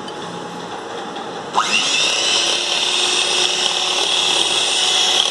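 Electric hand mixer spins up with a rising whine about a second and a half in, then runs steadily as its beaters whip cocoa powder into thick whipped coffee foam.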